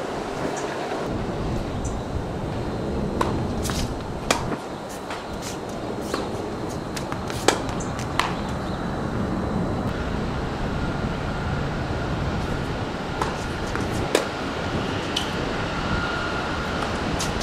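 Tennis balls struck by rackets and bouncing on a hard court: sharp pops come singly and in pairs, a few seconds apart, over a steady noisy background.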